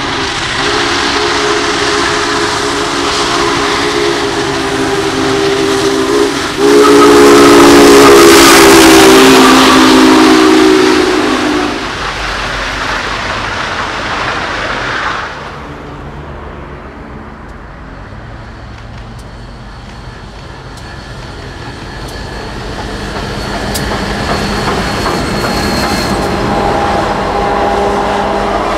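Union Pacific Big Boy 4014 steam locomotive blowing its chime whistle, one long chord held over the noise of the passing train, loudest in the middle and stopping about twelve seconds in. The train noise cuts off at about fifteen seconds, and a quieter rumble of the passing train then builds toward the end.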